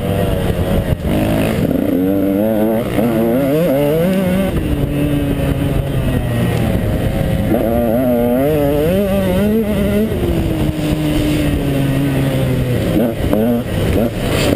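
KTM 150 XC two-stroke dirt bike engine under hard riding, its pitch rising and falling over and over as the throttle is worked, with a steadier held stretch about ten seconds in.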